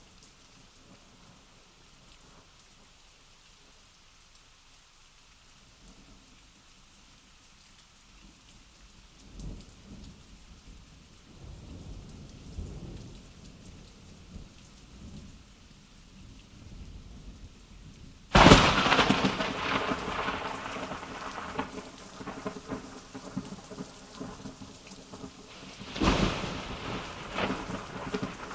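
Thunderstorm sound effect: steady rain under low rolling thunder that builds from about eight seconds in. About two-thirds of the way through comes a sudden loud thunder crack that rolls on, and a second, weaker crack follows near the end.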